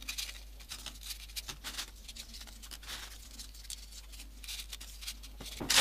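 Faint, scattered rustling and light ticks of folded paper origami modules being handled and pushed into place on a base of paper modules.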